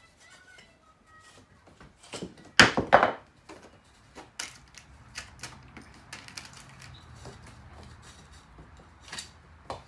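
Two loud, sharp knocks close together, then lighter clicks and taps: knockout tabs being punched out of an electrical box.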